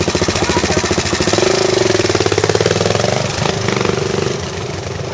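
Dirt bike engine pulling uphill with a fast, even pulsing beat; it revs harder from about a second in to around three seconds, then eases off near the end.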